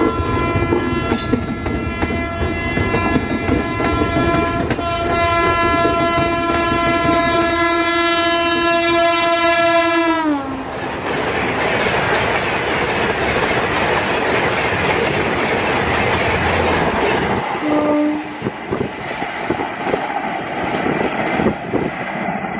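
Gatimaan Express's WAP-5 electric locomotive sounds one long horn blast while approaching fast, and the horn drops in pitch about ten seconds in as the locomotive passes. The loud noise of the coaches rushing by at high speed follows. A short second horn note sounds near eighteen seconds, then the passing noise fades.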